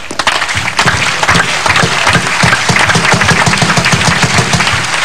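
Crowd applauding and clapping, building up about a second in and going on steadily.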